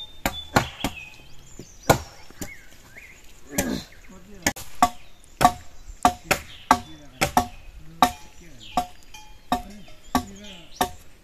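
Repeated chopping with a blade: sharp strikes, each with a short ring, about two to three a second, coming faster a few seconds in.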